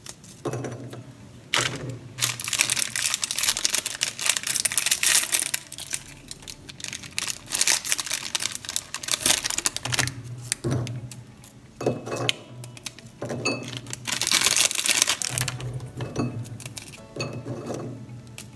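Oreo cookies being broken into pieces by hand over a blender jar: several stretches of dense crackling and crunching, the longest a few seconds in. Background music plays underneath.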